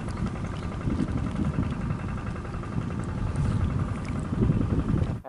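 A small motor engine running steadily under heavy rumbling wind noise, as on the move, cutting off abruptly near the end.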